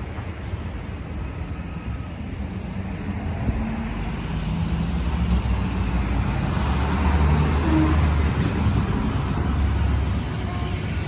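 Street traffic noise: vehicle engines running, with the sound building to its loudest about two-thirds of the way through as a vehicle passes close.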